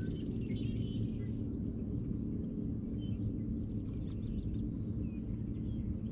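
Outdoor ambience: a steady low rumble with small birds chirping now and then, most often near the start.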